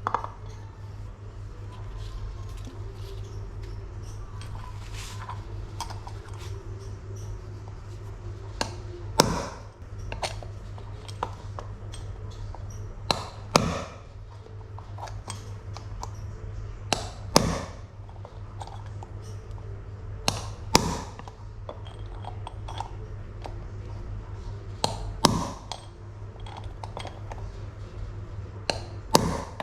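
Hammer blows on metal, struck in quick pairs about every four seconds, driving bicycle frame linkage bearings out or in. A steady low hum runs underneath.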